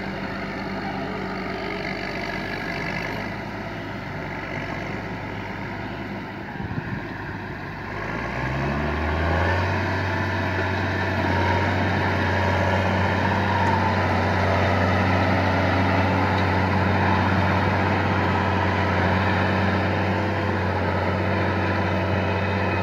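An engine running steadily; about eight seconds in its pitch rises and then holds steady at the higher pitch, a little louder.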